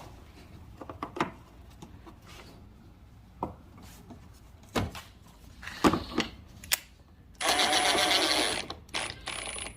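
Cordless drill driving in a bolt: a steady motor whine for about a second and a half near the end, then a shorter, quieter second run. Before it come scattered light clicks and knocks of parts being handled.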